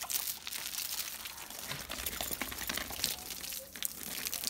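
Irregular splashes, drips and crackles of water on a wet Cane Corso during its bath.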